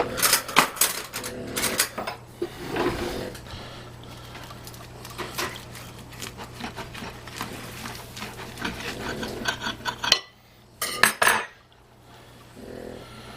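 Knife and cutlery clinking and scraping against a plate as a stacked double burger is cut in half. There are several sharp clinks in the first two seconds and again about eleven seconds in, with quieter scraping between.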